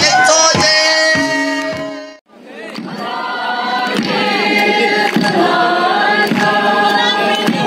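A group of voices singing a Kuki folk song together. About two seconds in the singing breaks off for an instant and comes back as another group singing over crowd noise.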